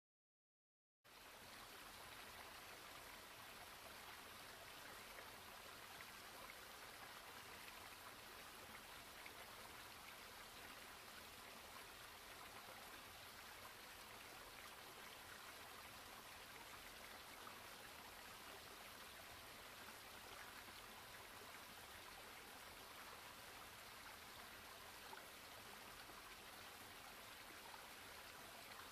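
Faint, steady rush of running stream water, cutting in abruptly about a second in after dead silence.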